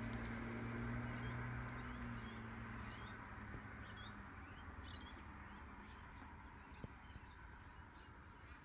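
Faint bird chirps: a scattered run of short, high calls through the middle, over a low hum that fades out over the first few seconds.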